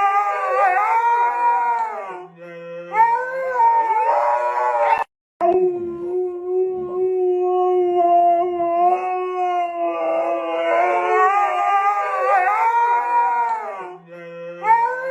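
A dog howling in long drawn-out notes that waver and bend in pitch, with a brief break about five seconds in.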